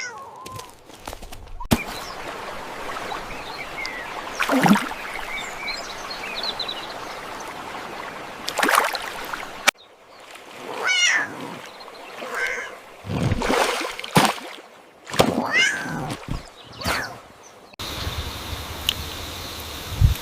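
Cat meowing, several short separate calls in the middle of the stretch, over a steady background hiss with a few sudden effect sounds.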